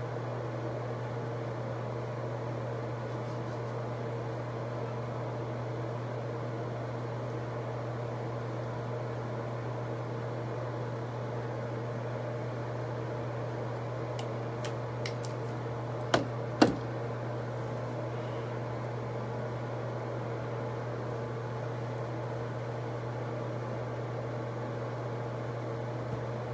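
Steady low mechanical hum, with a few faint ticks and then two sharp clicks about half a second apart around sixteen seconds in.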